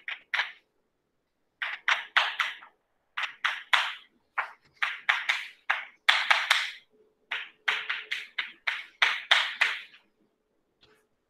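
Chalk tapping and scraping on a chalkboard as block capital letters are written: quick runs of short strokes with brief pauses between words. The strokes stop about a second before the end.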